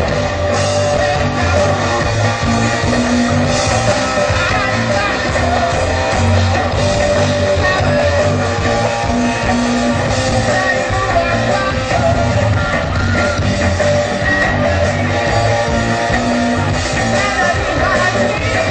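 Loud rock music with singing and guitar over a steady drum beat, played by a percussion ensemble.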